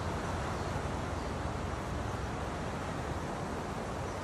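Steady wind rumbling and rushing over the microphone, unbroken throughout.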